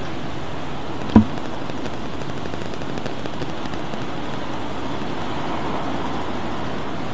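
Steady rush of thunderstorm rain and gusting wind, with a single sharp knock about a second in.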